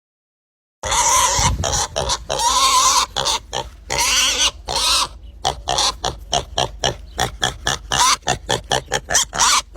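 Pig squealing loudly, starting about a second in: long shrill squeals at first, then a fast run of short squeals and grunts.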